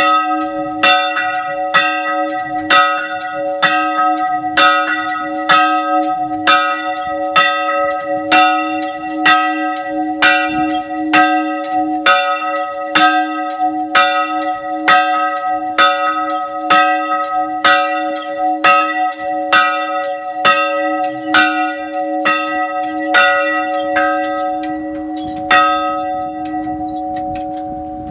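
Church bell ringing, struck about once a second in an even rhythm over its steady hum. The strikes stop near the end and the bell hums on, fading away.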